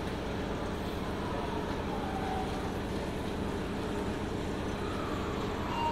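Long escalator running, a steady low machine hum and rumble as it carries riders down.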